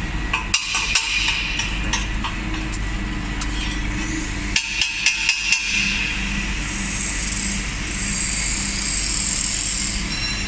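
Steady drone of a running automatic pole seam-welding line, broken twice by a quick run of sharp metallic knocks, once about half a second in and again about four and a half seconds in.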